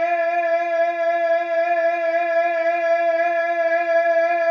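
One long held musical note, steady in pitch with a slight waver, sustained without a break between sung lines of a devotional song.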